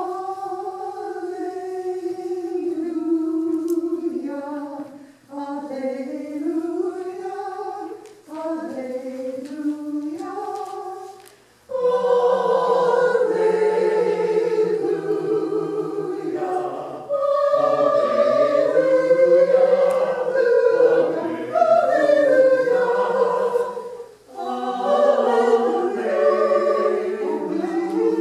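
Small church choir singing. For the first dozen seconds it is a single melody line in short phrases; after that it opens into fuller harmony in several parts, with lower voices added.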